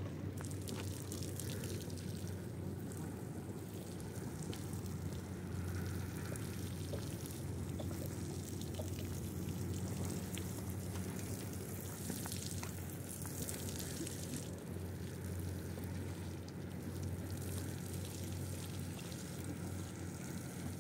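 A steady low mechanical hum, like a motor or engine running evenly, with an even hiss over it.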